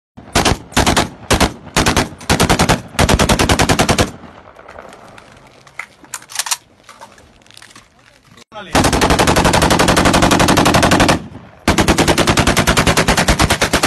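Kalashnikov AK-pattern rifle (7.62×39 mm) firing on full automatic. There are several short bursts in the first four seconds, then after a pause of about four seconds come two long bursts of about ten shots a second.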